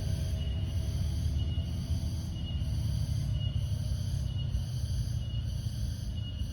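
Crickets chirping in an even, pulsing rhythm, about one pulse a second, over a low rumble of wind on the microphone.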